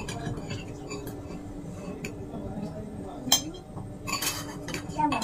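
Spoons and forks clinking and scraping on dinner plates as people eat, with one sharp clink about three seconds in.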